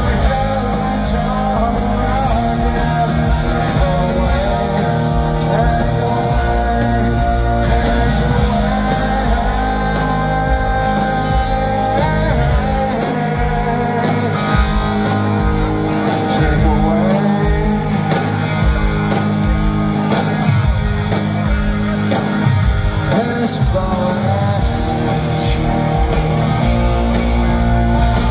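Live punk rock band playing through the PA: distorted electric guitars, bass and drums with lead vocals sung over them.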